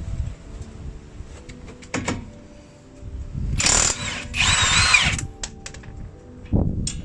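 A handheld power tool runs for about two seconds, its high motor whine wavering in pitch. There are a few short knocks before and after.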